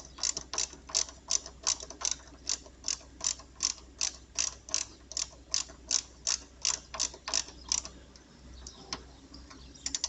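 Ratchet wrench clicking at an even pace, about three clicks a second, as a 10 mm bolt is tightened down on a chassis earth point. The clicking stops about eight seconds in, with a few faint clicks near the end.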